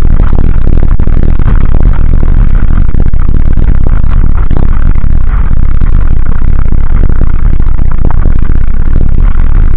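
Dualtron Ultra electric scooter ridden fast over a gravel track: loud, constant wind rush and tyre noise with many small clicks and rattles, heard through a camera fixed to the scooter's stem.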